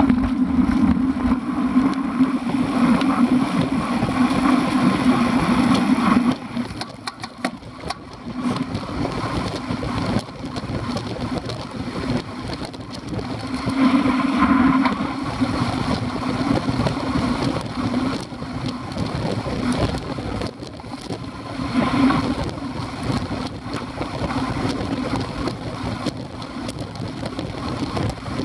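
Wind and road noise from a road bike riding along at speed, picked up by a bike-mounted action camera: a steady rumble that is loudest for the first six seconds, drops, then swells again twice.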